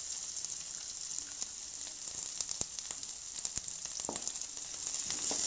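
Chopped onions and cumin seeds sizzling in hot oil in an aluminium kadai, a steady frying hiss with scattered sharp ticks.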